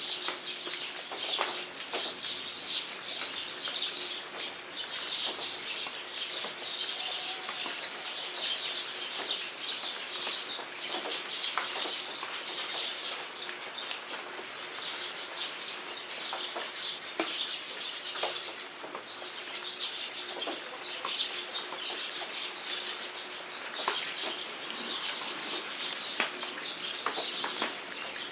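Many birds chirping continuously over steady rain, with separate drops striking close by.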